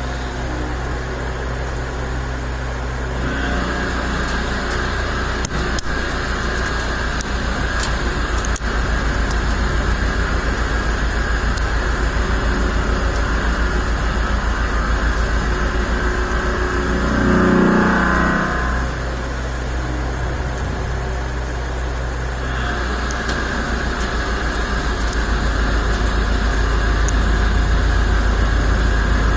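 TCP V-500 three-axis vertical machining centre running through a valve-body drilling cycle: a steady machine drone with a low hum and hiss. A little past the middle, the pitch briefly falls and rises again.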